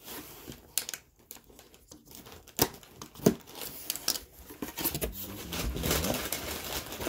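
A cardboard shipping box being opened by hand: several sharp tearing and scraping snaps as the flaps are pulled open, then steady rustling near the end as the contents are handled.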